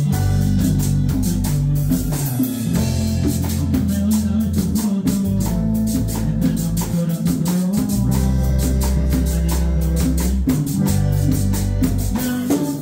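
A live band playing a song, with electric bass, electric guitar, a drum kit and congas keeping a steady beat, and a male voice singing into a microphone over it.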